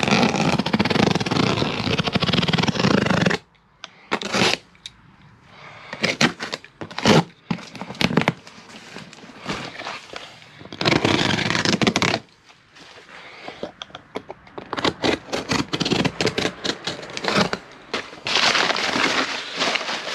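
Utility knife slicing through duct tape and cardboard on a parcel, with scraping and tearing in uneven bursts, the longest over the first three seconds. Near the end, crumpled packing paper rustles as the box is opened.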